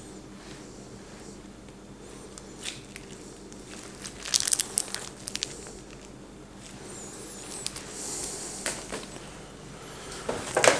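Piping bag of pastry cream being handled and squeezed onto a cake layer. Short bouts of rustling and small clicks come about four seconds in, again near the end and loudest there, over a faint steady hum.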